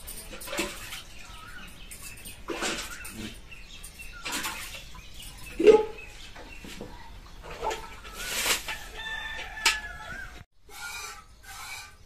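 Hand milking a Gir cow into a steel pail: milk squirting from the teats into the pail in a series of hissing squirts. After about ten and a half seconds the squirts come quicker, about two a second, with a ringing note from the metal pail.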